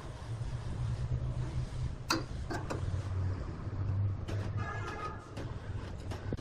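Steady low mechanical hum with a few sharp knocks and a brief pitched tone about two-thirds of the way through.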